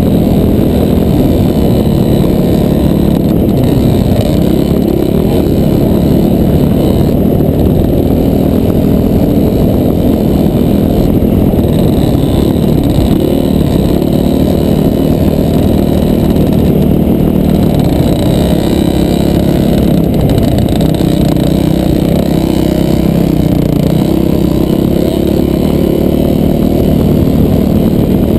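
Off-road dirt bike engine running hard at speed, its note wavering up and down with the throttle, heard muffled from a helmet-mounted camera.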